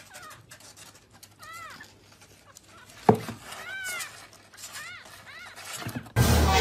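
Kitten mewing: four short, high-pitched mews that rise and fall, with a single knock about three seconds in. A loud rush of noise starts near the end.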